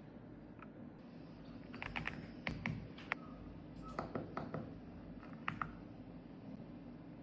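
Keys being pressed on an AULA F75 mechanical keyboard: scattered, irregular keystrokes, a few at a time with short pauses between.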